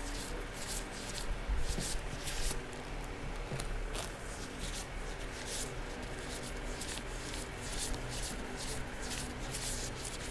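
A stack of Vietnamese đồng polymer banknotes being counted by hand, each note flicked past with a short crisp rustle, several a second in a steady run.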